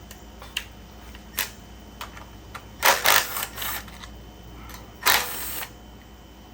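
Hands working on a small-engine carburetor with tools: scattered light clicks, and two louder noisy bursts of clatter or hiss about three and five seconds in.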